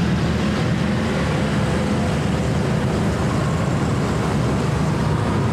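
Steady low rumble of riding in motorcycle traffic: engine and road noise with no revving.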